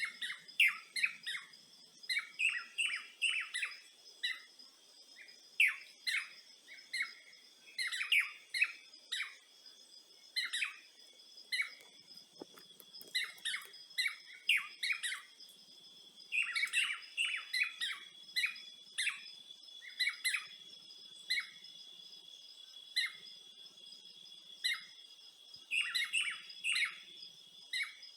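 Birds chirping in quick, short notes that come in clusters, over a steady high-pitched drone.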